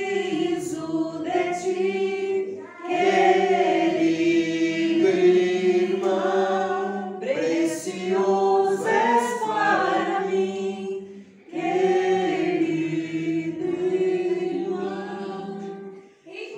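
Voices singing a slow Portuguese worship song together in long held lines, with short breaks between phrases about three, seven and eleven seconds in, fading out near the end.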